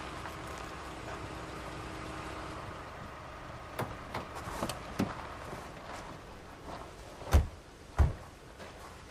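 A few light clicks, then two car doors slam shut on an SUV near the end, about half a second apart.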